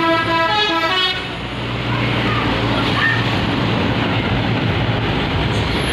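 Tour bus 'telolet' musical horn playing a run of stepped notes, cutting off about a second in. It is followed by the steady noise of the bus's engine and traffic passing.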